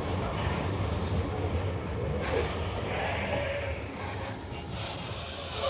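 Freight train of open wagons rolling past on the track: a steady low rumble of wheels on rail, changing in character about two seconds in.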